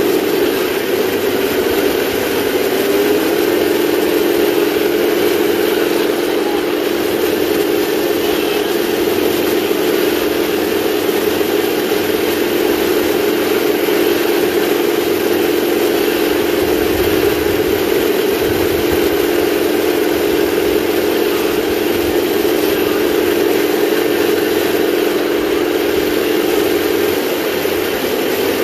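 A 1/16 scale RC tank's sound unit plays a simulated engine noise through its small speaker as the tank drives. The engine note rises in pitch over the first few seconds, runs steadily, and drops back near the end.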